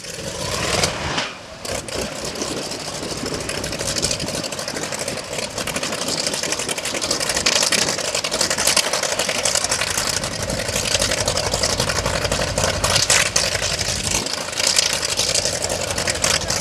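Douglas AD-5W Skyraider's Wright R-3350 radial engine just started: it builds up within the first second, falters briefly, then settles into a steady idle.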